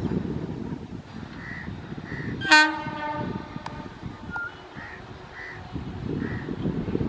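A single short blast of an electric locomotive's horn about two and a half seconds in, over the low rumble of a passing train.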